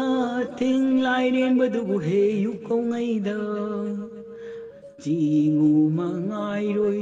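Background music of slow, chant-like singing, the notes held long with a change of pitch about five seconds in.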